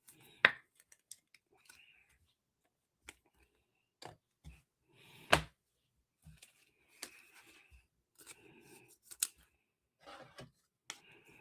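Trading cards and plastic card holders being handled: scattered small clicks and snaps with short scraping slides, the sharpest snap about five seconds in.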